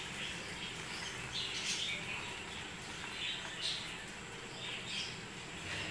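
Birds chirping in short, irregular calls over a steady low background hum.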